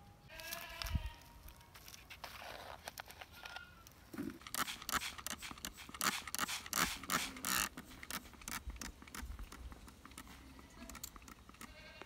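Hand-pumped plastic spray bottle misting potting soil in a plastic pot, a quick run of short spritzes over a few seconds. Before it, near the start, an animal gives a brief bleat-like call.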